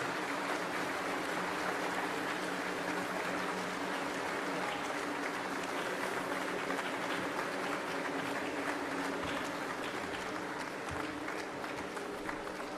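A large audience applauding steadily, a dense clatter of many hands clapping, easing off slightly near the end.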